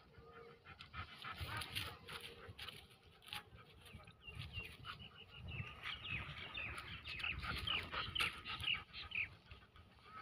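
A dog panting with its mouth open, while birds chirp over and over, thickest from about four to nine seconds in.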